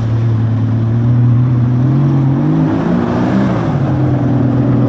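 Jeep engine working under load as it climbs a steep dirt hill. The engine note rises about two seconds in, then drops and wavers before settling again.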